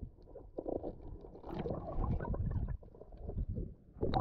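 Muffled, irregular sloshing and gurgling of moving water, in uneven surges, with a short splashy burst near the end.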